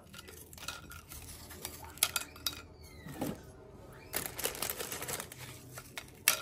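Hard corn taco shells snapped and broken by hand over a glass pie dish: a string of sharp crunches and crackles, the loudest near the end.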